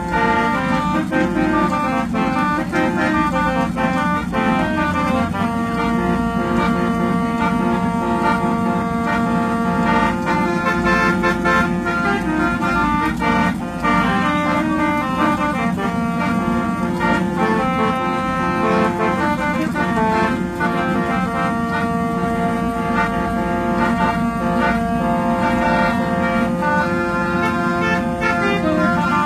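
Indonesian bus "telolet" multi-tone air horn playing a tune: held notes that step from pitch to pitch, over a steady low rumble.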